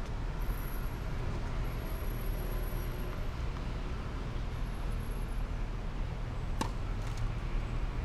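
Steady low rumble of distant road traffic, with the sharp pop of a tennis ball being hit about six and a half seconds in and a fainter pop half a second later.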